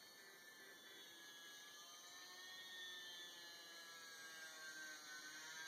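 Faint whine of the E-flite UMX Yak 54's small electric motor and propeller, a thin tone that wavers slowly in pitch and grows a little louder as the plane flies overhead.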